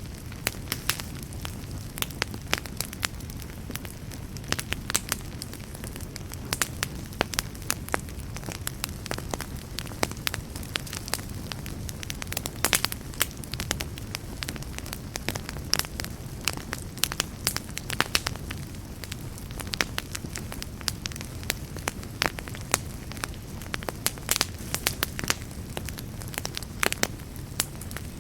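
Wood campfire burning steadily, with a low rumble of flames and frequent sharp, irregular crackles and pops.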